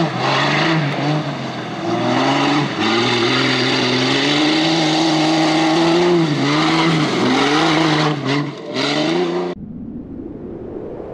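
Jeep CJ-5 offroad race vehicle's engine revving hard under load as it climbs a muddy slope, the revs rising and dipping again and again as the driver works the throttle. About nine and a half seconds in it cuts off abruptly, replaced by a faint hiss that slowly rises.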